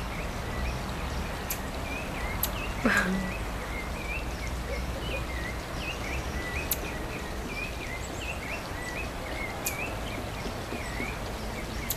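Woodland ambience: small high chirps repeating every fraction of a second throughout over a low steady rumble, with a few sharp high ticks and one louder call about three seconds in that slides steeply down in pitch.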